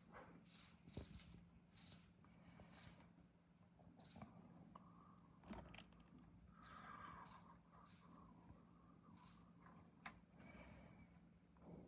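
A cricket chirping in short, high, sharp chirps, irregularly about once a second. Under it, faint crunching of mealworms being chewed.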